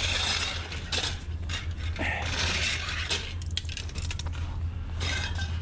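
Scrap sheet steel being handled and bent into place, with repeated metallic clinks, knocks and scraping.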